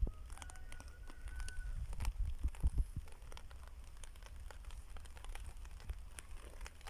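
Wind rumbling on the microphone during a thunderstorm, with scattered light crackling clicks and a brief thin whistle in the first two seconds.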